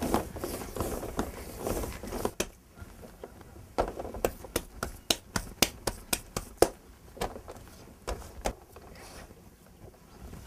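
Hands working a lump of wet potter's clay: pressing and kneading, then a run of sharp slaps as the clay is patted between the palms, about two to three a second, thinning out near the end.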